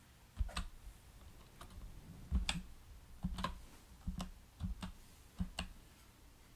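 Computer keyboard keys being typed at a password prompt: about a dozen separate, unevenly spaced keystrokes, some in quick pairs, all faint.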